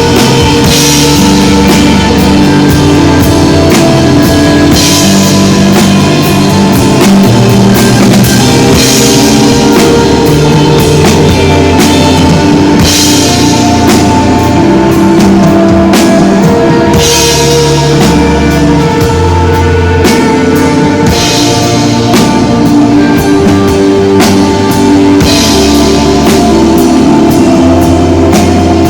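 Live desert rock band playing: drum kit and electric guitar over low sustained notes that change every second or two, with a cymbal crash about every four seconds.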